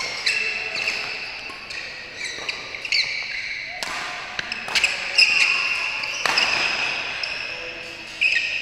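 Badminton rally: a string of sharp racket hits on the shuttlecock, with shoe soles squeaking on the court mat as the players lunge and move.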